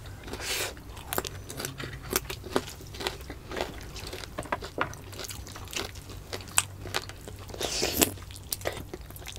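Close-miked eating sounds: people chewing and biting into balbacua stew and crispy dried anchovies (dilis) by hand, with many short sharp clicks and the strongest bite about eight seconds in.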